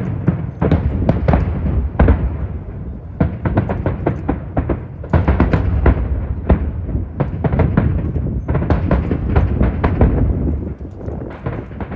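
Aerial fireworks exploding in a dense, rapid barrage of bangs and booms, with strong wind rumbling on the microphone.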